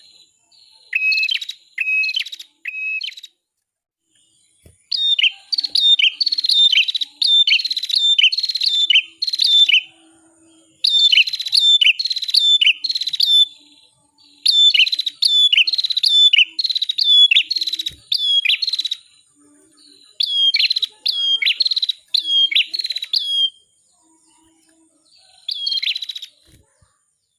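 Prenjak (cimblek) kepala merah, a prinia, singing: phrases of three to seven short, sharp notes that drop in pitch, about two a second, repeated after short pauses.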